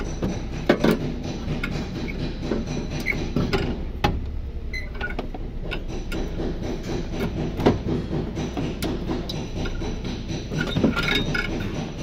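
Irregular metallic knocks and clanks of a car's AC compressor being worked loose and pulled out past the pipes of a Toyota Yaris engine bay, over a steady low hum.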